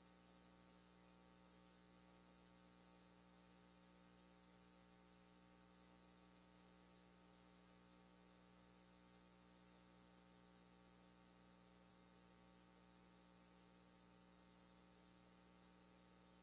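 Near silence with a faint, steady electrical hum and hiss.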